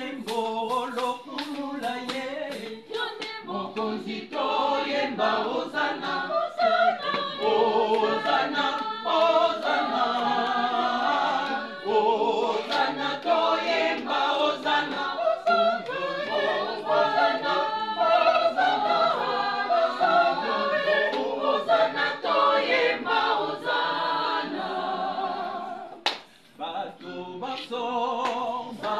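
Church choir singing a cappella, several voices at once, with a short break about three seconds before the end.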